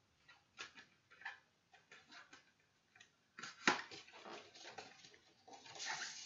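Cardboard CD sleeve and paper insert being handled and unfolded: scattered light taps and paper rustles, a sharper snap about three and a half seconds in, and a longer rustle near the end as the insert is drawn out.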